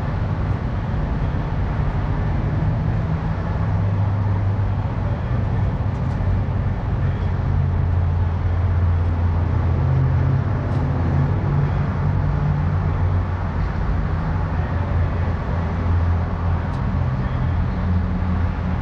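Semi truck's diesel engine idling with a steady low hum, a few faint ticks over it.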